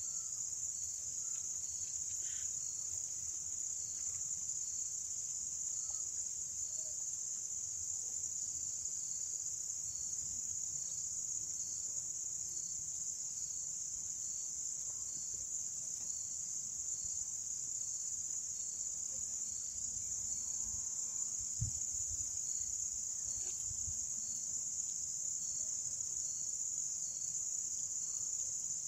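Evening chorus of crickets: a steady, high-pitched continuous trill, with a fainter pulsing note repeating about one and a half times a second beneath it. A few faint chirps come near the start.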